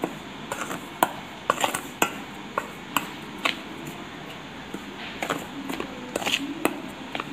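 Steel spoon stirring dry flour and semolina in a stainless steel bowl: a soft scraping with irregular clinks of spoon against bowl, about one or two a second.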